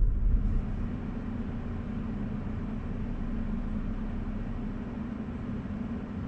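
Steady low rumble of the Rivian R1T electric pickup rolling slowly along a dirt trail: tyre and road noise, with no engine sound.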